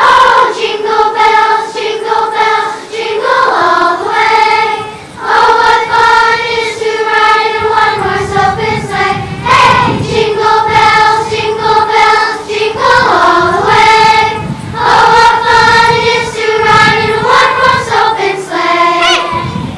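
Children's choir singing together, with several long held notes.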